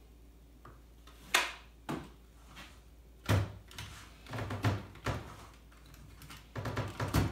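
Hand-lever French fry cutter pressing a potato through its blade grid: a string of hard clunks and clacks from the metal lever and frame, with a heavier thud about three seconds in and a quick cluster of knocks near the end.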